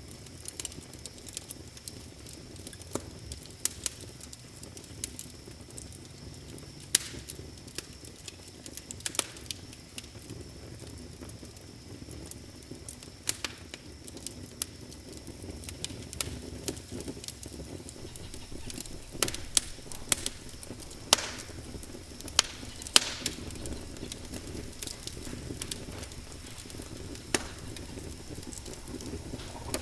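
Wood fire in a fireplace crackling, with irregular sharp pops and snaps over a steady low rumble; the pops come thickest about two-thirds of the way through.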